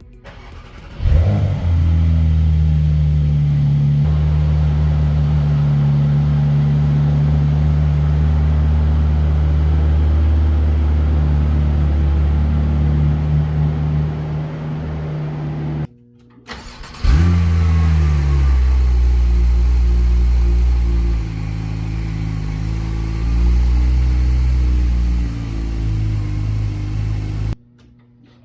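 Porsche 911 Turbo S twin-turbo flat-six cold-starting through a new Fabspeed exhaust. It catches about a second in with a rev flare and settles into a loud, steady fast idle. The sound breaks off, then a second start-up with another flare follows, and the idle steps down in pitch before stopping abruptly.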